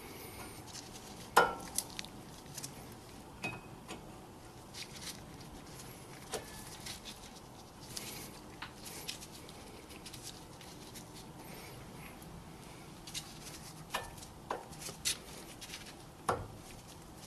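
Scattered metallic clicks and clinks of a front brake pad and its metal clips being handled and fitted into the caliper bracket. The loudest click comes about a second and a half in, with a few more near the end.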